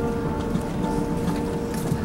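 Airbus A380 cabin noise while taxiing after landing: a steady low rumble with a couple of held humming tones and a few light clicks or rattles.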